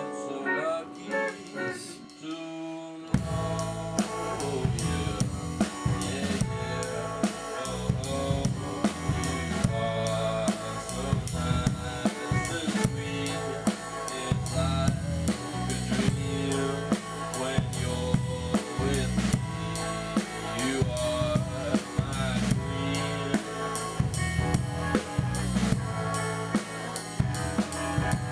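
Rock song with electric guitar, bass and drum kit. A sparse guitar opening gives way about three seconds in to the full band, with a steady beat on kick and snare.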